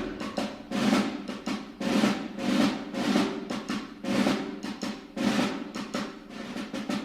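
Fireworks going off in a rapid series of bangs and crackles, several a second.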